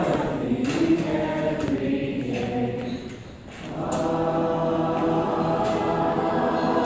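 A large group of children and teenagers singing a mealtime grace together without accompaniment. After a short pause for breath about three seconds in, they come back in on long held notes.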